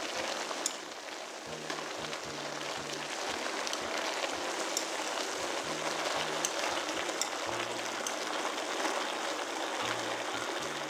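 Beef bulgogi and vegetables sizzling steadily as they are stir-fried in a pan, with wooden chopsticks clicking against the pan now and then. Background music with a low bass line plays underneath.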